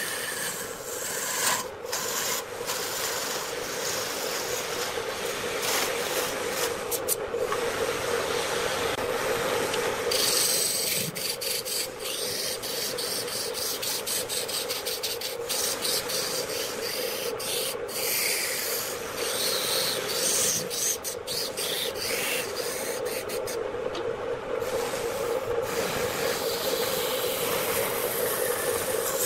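Wood lathe running while a hand-held turning tool cuts a large spinning wood blank: a continuous scraping hiss of shavings coming off the cut over a steady hum, broken by frequent irregular sharp ticks.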